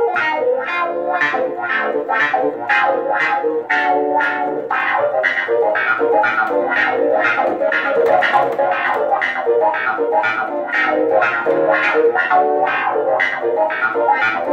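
Clavinet voice of a Nord Electro stage keyboard played funky with both hands: short, percussive, choppy notes, about three accented strikes a second, over lower notes in the left hand.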